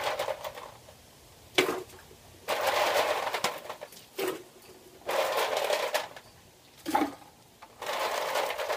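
Ice cubes clattering as they are scooped from a container in repeated loads, each about a second long, with single sharp knocks of ice or container between the loads.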